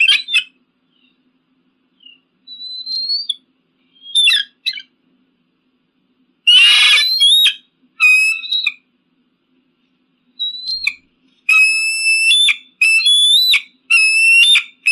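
An eagle calling: high-pitched whistled calls in short bouts with silent gaps, one harsher, noisier call about six and a half seconds in, then a run of evenly repeated piping calls from about eleven seconds on.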